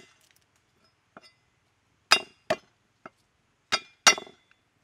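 A heavy steel cleaver coming down on garlic cloves on a wooden chopping block: sharp chops with a short metallic ring, four strong strikes in two quick pairs and a couple of light taps.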